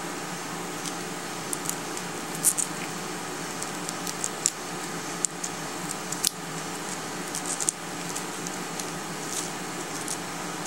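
Soft wet squishes and light ticks from gloved fingers pressing and bending a piece of shape memory gel, softened by hot water, over a steady room hum. The ticks are scattered and irregular.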